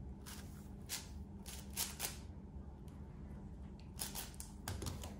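Layers of a large speed cube being turned by hand: quick plastic swishing turns, a run of several in the first two seconds, a pause, then a few more near the end.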